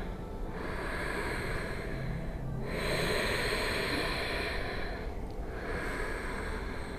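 A woman's slow, audible breathing: about three long breaths of around two seconds each, with short pauses between them.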